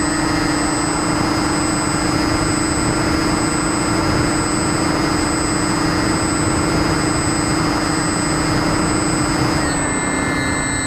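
Multiplex Twinstar model plane's twin electric motors and propellers running at steady throttle, heard from the onboard camera with wind rushing over the microphone. Near the end the pitch drops a little.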